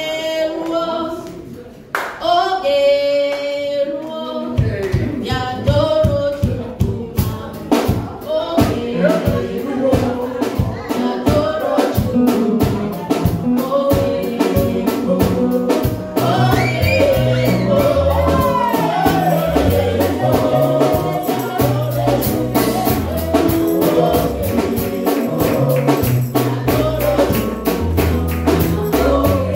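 Live gospel praise music: voices singing unaccompanied, then about four seconds in a band enters with bass, a steady drum beat and tambourine under the singing.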